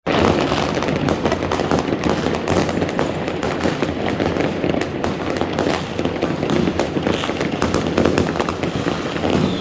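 New Year's Eve fireworks and firecrackers going off all around: a dense, continuous crackle of many small bangs over a steady rumble of distant explosions.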